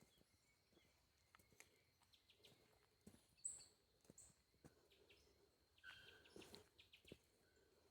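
Faint bird calls: two short high chirps about halfway through and a few thin calls near the end, over quiet outdoor background noise.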